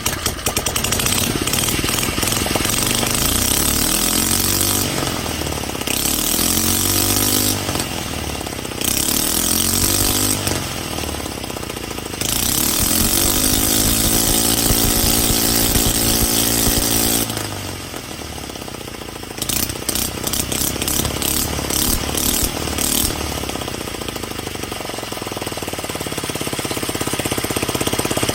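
Pocket bike's small engine running and being revved repeatedly: several short rises in pitch, a longer rev held high for about five seconds around the middle, a drop back to a lower, rattly idle, then climbing again near the end. It has been set up to run really rich.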